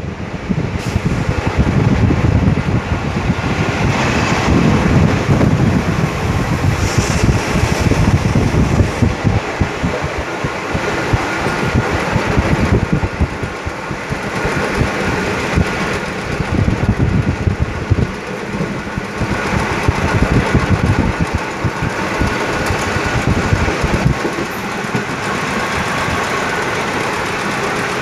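Passenger train running along the track, heard from on board: a steady, rumbling noise of the coach on the rails that swells and eases.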